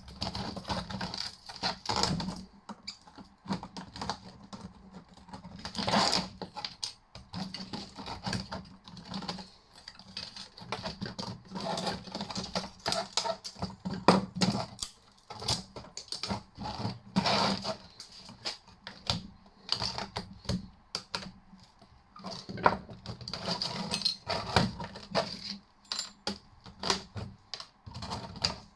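A screwdriver prying and scraping at a metal fitting, with small metal parts and wires clicking and rattling in irregular bursts.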